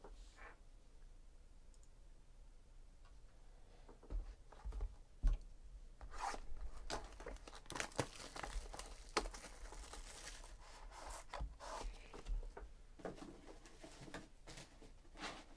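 Plastic shrink wrap being torn and crinkled off a sealed trading card box, with sharp crackles and rustling that start about four seconds in and come in bursts.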